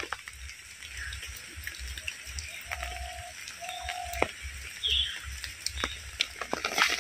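Rain falling, a steady hiss with many separate drops pattering and clicking. Two short steady-pitched animal calls come a little before the middle.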